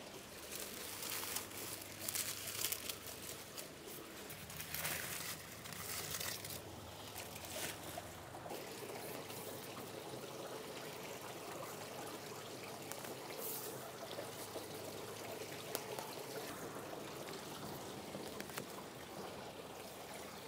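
Water pouring and splashing in uneven bursts, settling after about eight seconds into a steady run of water.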